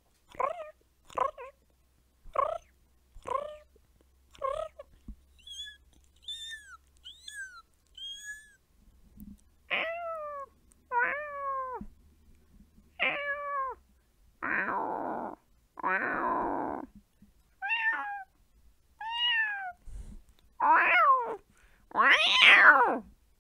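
A woman imitating cats with her voice: a quick run of short meows, then a few high, thin kitten-like mews, then longer meows that fall in pitch. Midway come two rough, raspy cries, then more meows. The calls build to two loud, drawn-out yowls near the end, the last one the loudest.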